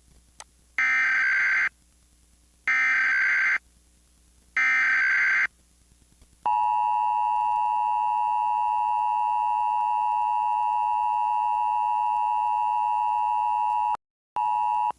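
Emergency Alert System test tones: three short bursts of SAME digital header data, each about a second of buzzy electronic warbling, then the EAS two-tone attention signal (853 and 960 Hz sounded together), a steady harsh tone of about eight seconds that cuts out for a moment near the end.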